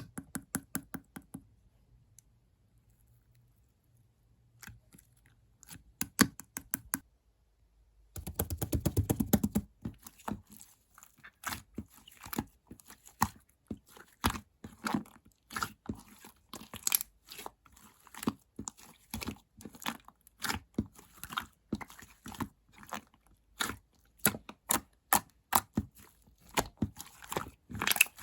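Hands squishing, poking and stretching slime: a long run of short sticky clicks and pops, with a quick dense flurry of them about eight seconds in.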